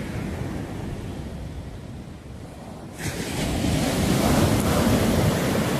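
Ocean surf breaking and washing up on a sandy beach, with wind buffeting the microphone. The rush jumps louder about halfway through.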